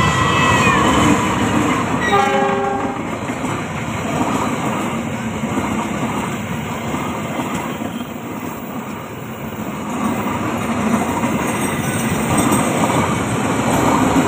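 A locomotive horn sounds twice, in a blast that ends just under a second in and another about two to three seconds in. Then the steady noise of the Argo Parahyangan passenger express's wheels on the rails as it runs straight through the station without stopping.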